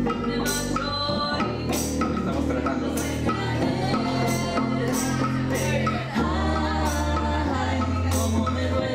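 Live band playing a song with a lead vocal over keyboard and cello. Sustained low notes shift every second or two under a steady, evenly repeated high percussion beat.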